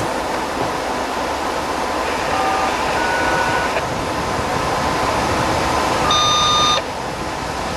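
Train passing close by with the steady rumble and rattle of its cars. Brief high-pitched tones ring out over it, the loudest about six seconds in, and that one cuts off abruptly.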